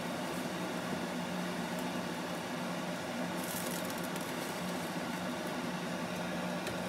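Steady electric hum of a flat-top cooktop heating oil in a pan, with a brief hiss about three and a half seconds in.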